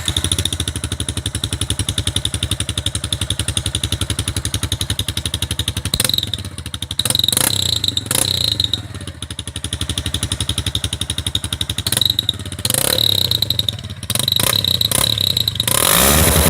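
Yamaha Fazer 150's single-cylinder four-stroke engine through an ML Competition aftermarket exhaust, idling with a fast even pulse. From about six seconds in the throttle is blipped several times, with a longer rising rev near the end.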